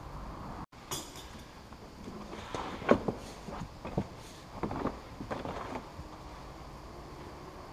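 A moulded rubber boot liner being pulled out of a Nissan Qashqai's boot: a run of irregular knocks, slaps and rustles as it is handled, the loudest knock about three seconds in.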